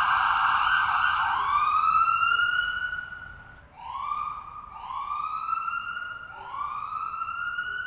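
Electronic ambulance siren: a rapid yelp for about the first second, then switching to a slower wail of about four rising sweeps that climb and level off, growing fainter near the end.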